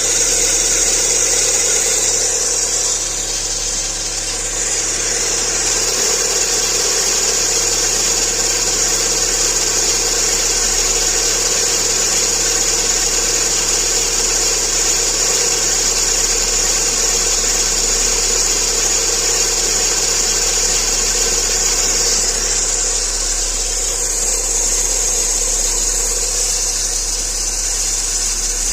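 Lada Largus 1.6 16-valve VAZ-21129 engine running steadily at idle, with a steady high-pitched noise over the engine sound: the extraneous engine noise being traced.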